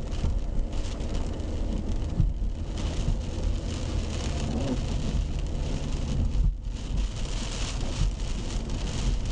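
Car driving on wet pavement, heard inside the cabin: a steady low road rumble with the hiss of tyres on the wet road.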